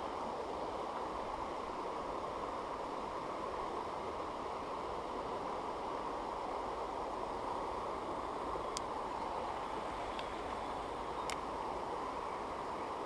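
Shallow stream water rushing steadily over rocks and riffles, with two sharp clicks in the second half.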